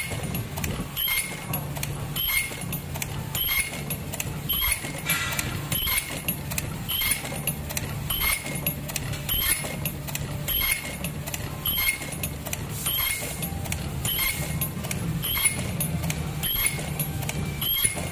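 Automatic face mask earloop welding machine running its production cycle: short high chirps and clicks repeat about once a second over a low pulsing machine hum as each mask blank is fed and its earloops are welded.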